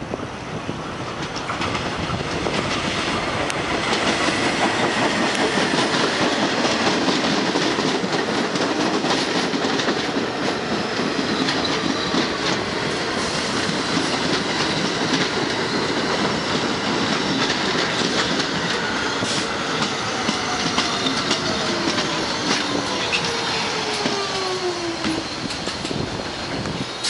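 R46 subway train pulling into a station and running past along the platform: steady rumble of steel wheels with clickety-clack over the rail joints and some wheel squeal. A motor whine falls slowly in pitch as the train slows toward its stop.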